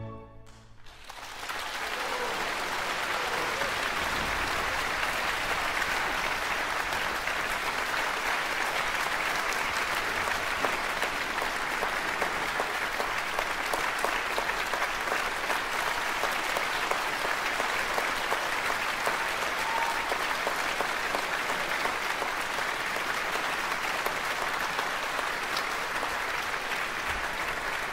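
Audience applauding, swelling up over the first two seconds and then holding steady.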